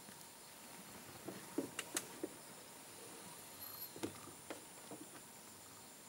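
A few faint, sharp cracks and knocks at irregular times, a cluster of them about one to two seconds in and a few more around four to five seconds, over a faint steady high whine.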